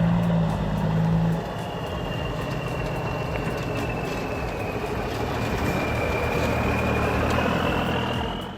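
Heavily loaded log truck's diesel engine pulling on a rough dirt road, with road noise and a thin high whine that slowly sags and rises in pitch. The engine is loudest for the first second and a half, then eases back a little.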